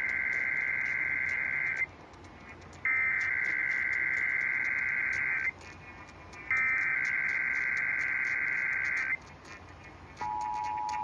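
Emergency Alert System SAME header: three identical bursts of shrill digital data screech, each about two and a half seconds long with about a second between them. About ten seconds in, the steady two-tone EAS attention signal begins, announcing the required monthly test.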